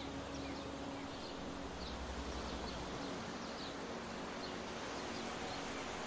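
Ocean surf: a steady wash of breaking waves and foam running over the shore, with short high bird chirps repeating every second or so.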